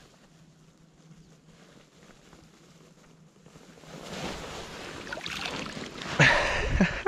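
A hand plunging into shallow river water to grab a crayfish: faint at first, then water sloshing and splashing that grows, with a loud splash near the end as the crayfish is lifted out dripping.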